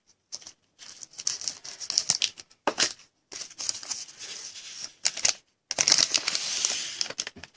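A trading-card pack's wrapper being crinkled and torn open, in a series of short rustles with a longer rustle near the end.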